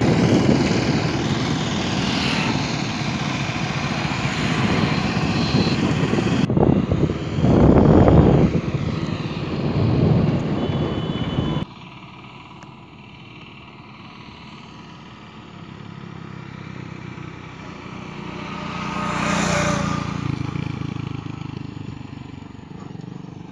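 Riding on a motorcycle: wind buffets the microphone over the running engine. About halfway through the noise cuts off abruptly to a much quieter steady engine hum, with a short swell of noise a few seconds before the end.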